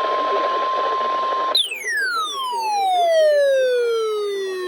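NOAA Weather Radio's steady 1050 Hz warning alarm tone over receiver static, marking a new warning. About a second and a half in it is cut off by a loud electronic tone that sweeps steadily down in pitch.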